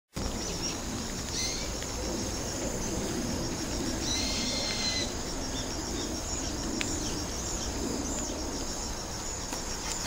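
Insects chirping in a steady, evenly pulsed high trill, with a bird calling briefly about a second and a half in and again around four to five seconds in, over a low background rumble.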